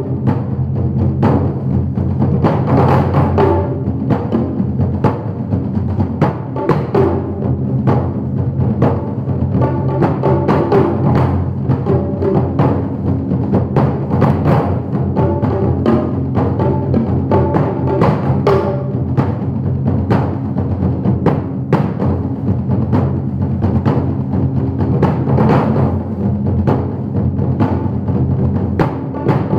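Percussion duet of drums struck with sticks: a dense, continuous stream of quick strokes on several tuned drums, with steady ringing drum tones underneath.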